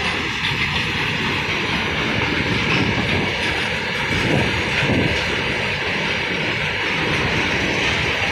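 Open-top freight wagons of a goods train rolling past at speed: a steady, continuous noise of steel wheels running on the rails.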